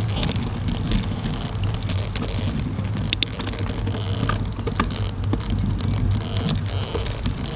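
Bicycle rolling over rough asphalt, heard from a handlebar-mounted camera: a steady low rumble of tyre and wind noise on the microphone, with scattered small clicks and rattles.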